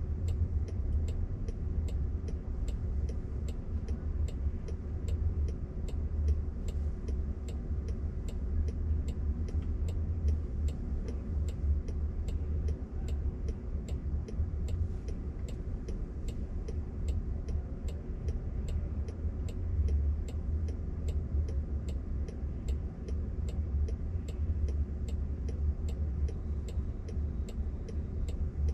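Turn-signal indicator of a Waymo car ticking evenly, a little under two ticks a second, while the car waits stopped, over a low steady cabin rumble.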